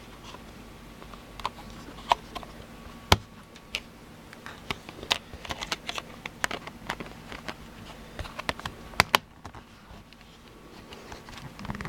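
Small plastic clicks and taps from handling a mini car DVR camera as its parts are fitted back in and its buttons pressed, with two louder, sharper clicks at about three seconds and nine seconds in.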